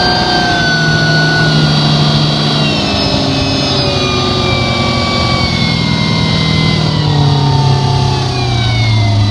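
Malibu 247 boat's inboard engine and ZF Ski-VEE V-drive transmission running. The engine note holds steady, dips about three seconds in, then slowly falls as the revs ease off. No distinct clunk stands out.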